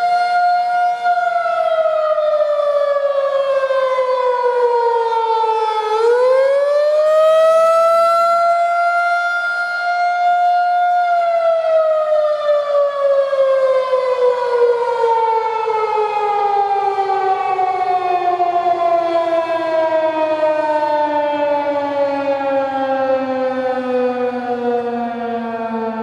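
Federal Signal 2001-SRNB outdoor warning siren sounding the attack signal. Its wail holds, sinks in pitch, climbs back within a couple of seconds and holds again. About eleven seconds in the signal ends and the siren winds down in one long, slow falling pitch.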